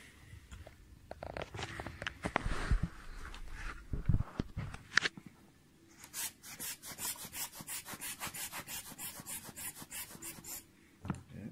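Handling clicks and knocks as the telescope tube is moved and set down. About halfway in, a rubber bulb air blower is squeezed rapidly, a regular run of short air puffs about five a second for roughly four seconds, blowing dust off the lens.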